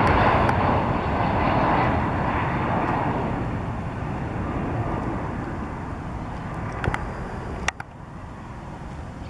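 Boeing 767-300ER freighter's twin jet engines on final approach, a steady rushing jet noise that fades as the airliner passes by toward the runway. Near the end there are a couple of sharp clicks, and then the level drops suddenly.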